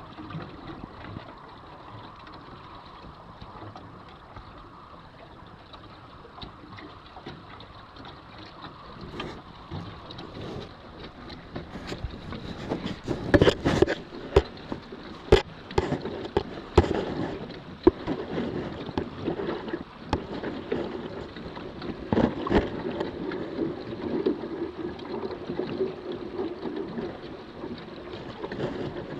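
Water rushing along the hull of a Sunfish sailboat under sail. From about halfway through, small waves slap sharply against the bow several times.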